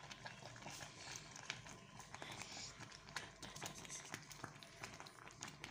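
Thick garri porridge boiling in a pot, with faint, irregular popping and plopping of bubbles.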